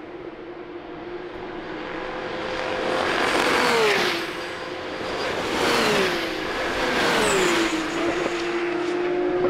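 Porsche 911 GT3 Cup (992) race cars' flat-six engines at speed, passing by one after another. The engine note of each of three cars drops in pitch as it goes past. Another car's engine keeps sounding steadily near the end.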